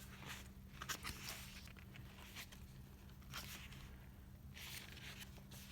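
Faint paper rustling as a K-pop album photobook's pages and inclusions are handled, in a few short bursts over a low steady hum.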